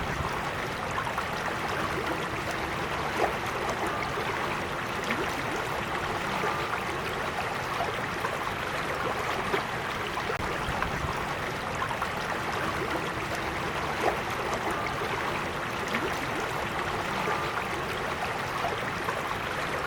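Gentle creek flowing steadily, with a few brief louder splashes.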